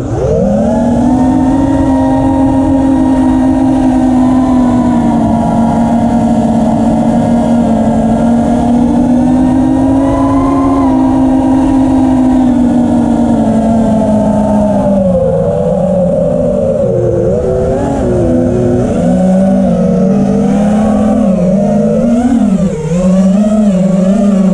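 Brushless motors of a 6-inch FPV quadcopter (T-Motor F80 Pro 1900KV on 6S, spinning Gemfan 5042 props) whining in flight, with rushing air noise. The pitch holds steady, then about fifteen seconds in drops and starts to waver up and down with the throttle.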